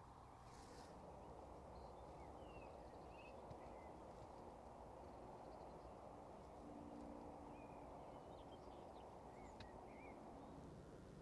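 Near silence: faint outdoor quiet with distant birds giving short chirps now and then.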